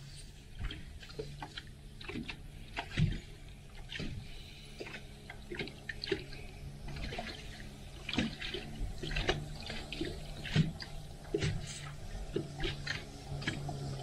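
Choppy lake water lapping and slapping against a fiberglass boat hull in irregular small splashes, over a low steady hum.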